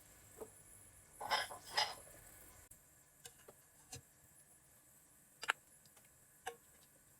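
A few light clicks and knocks of things being handled, with a short double clatter a little over a second in that is the loudest sound, then single clicks about a second apart.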